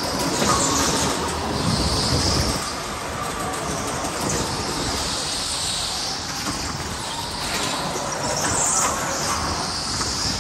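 Go-kart driving hard around an indoor track: steady running noise from the kart with a faint whine, and tyres squealing at times through the corners.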